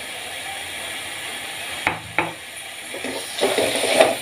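Masala paste sizzling as it fries in oil in a metal wok, with two sharp knocks about two seconds in, then a slotted spoon scraping and stirring through it near the end.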